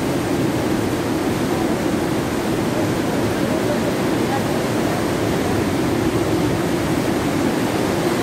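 Mountain torrent rushing through a narrow rock gorge: a steady, unbroken noise of falling white water.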